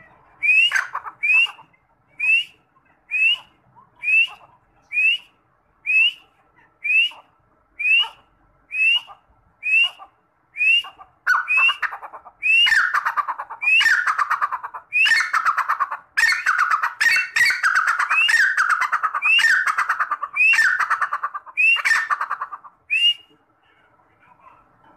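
Grey francolin (teetar) calling: about a dozen short, sharp whistled notes roughly one a second, then from about halfway a louder run of longer notes, each falling in pitch, stopping a second or two before the end.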